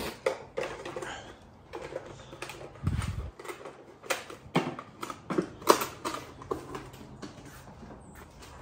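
Hard plastic action figures clicking and clattering against each other and a plastic storage tub as they are handled, in irregular sharp clicks, with a dull low thump about three seconds in.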